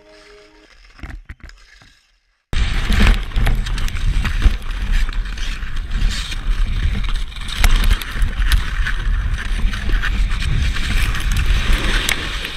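Ice skate blades scraping and carving on hard ice at racing speed, with wind rushing over the helmet-camera microphone. It cuts in loudly about two and a half seconds in, after the tail of background music, with several sharp knocks of skaters and gear colliding in a crash.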